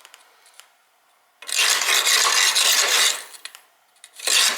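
A flue brush scraping through the wet, sooty passages of an oil-fired boiler. There is one long stroke of about a second and a half, and another begins near the end.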